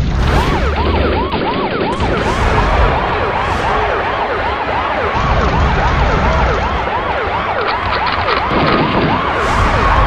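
Siren wailing in quick rising-and-falling sweeps, about two or three a second, over a dense, loud sound layer with several whooshes.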